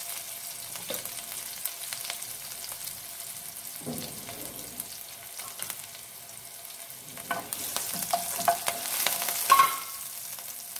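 Cumin, chopped ginger and green chilli sizzling in butter in a nonstick frying pan. A wooden spatula scrapes and clicks against the pan as it stirs, louder from about seven seconds in.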